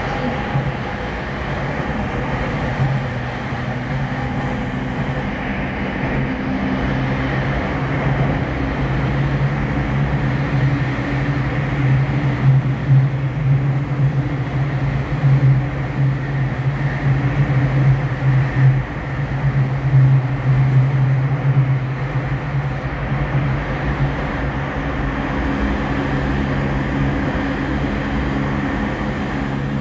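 Tokyo Waterfront Area Rapid Transit 70-000 series (renewed) electric train running between stations, heard from inside the car: a steady low traction-motor hum over wheel and rail noise, a little louder through the middle of the run.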